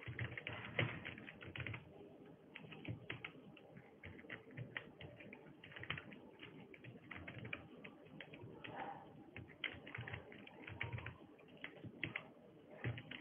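Typing on a computer keyboard: a run of irregular keystroke clicks as a terminal command is keyed in.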